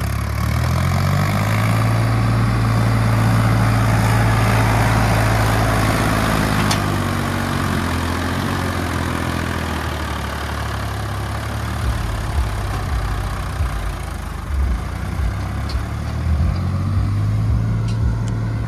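Mahindra tractor's diesel engine working hard hauling a heavily loaded trolley, its pitch rising over the first second or two and then holding steady. Irregular low thumps come in over the last few seconds.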